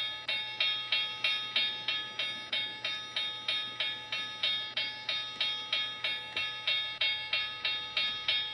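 Railroad crossing bell of a model grade-crossing signal ringing steadily, about three dings a second, each ding ringing with a clear metallic tone that fades before the next. It is the warning that the crossing is active while the train passes.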